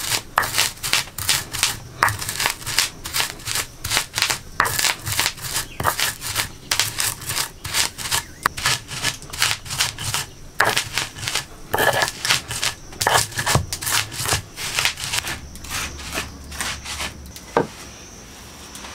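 Whole spice seeds being crushed with a stone pestle on a Nepali flat stone grinding slab (silauto and lohoro): stone scraping and knocking on stone through the seeds, about two to three strokes a second. The strokes stop about three-quarters of the way through, with one last stroke near the end.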